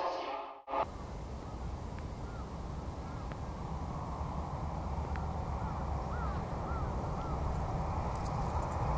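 Crows cawing, short calls singly and in twos and threes, over a steady low outdoor rumble that slowly grows louder. The platform sound cuts off abruptly about a second in.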